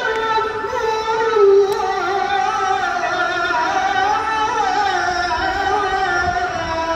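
A solo voice singing a slow, ornamented melody, with long held notes that bend and wind up and down in pitch.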